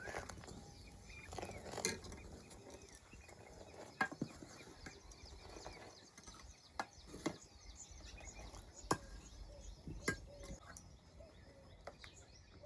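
Scattered sharp knocks and clinks, about seven or eight of them at irregular intervals, with small birds chirping throughout.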